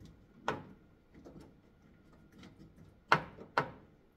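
Jorgensen bar clamp being set and tightened on a tanning bed canopy: a few sharp clicks and knocks, one about half a second in and the two loudest close together about three seconds in.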